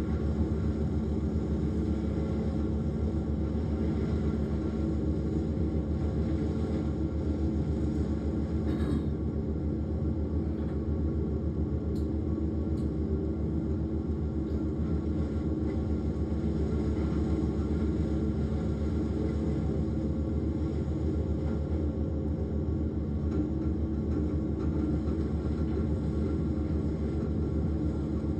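Bandit Intimidator wood chipper running steadily under load as it chips brush, its engine a constant drone with a low rumble and a few faint clicks.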